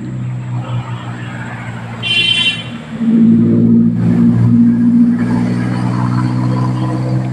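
A motor vehicle's engine running close by with a steady hum that gets louder about three seconds in. There is a brief high-pitched toot about two seconds in.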